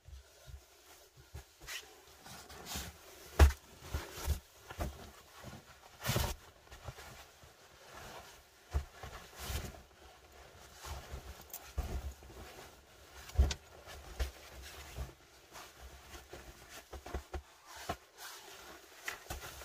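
Rustling and crinkling of a quilted mat and sleeping bag being handled and spread out over dry pine needles, with irregular soft bumps as the bedding is patted down and shifted. The sharpest bumps come about three and a half, six and thirteen and a half seconds in.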